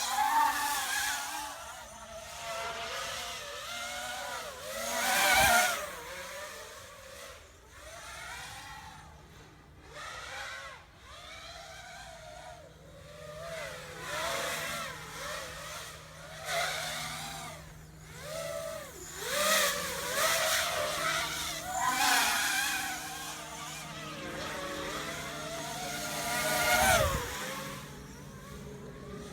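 Brushless motors of a Vortex 250 FPV quadcopter (Xnova 2204 2300 KV) whining as it flies, the pitch rising and falling constantly with the throttle, with several loud punch-outs.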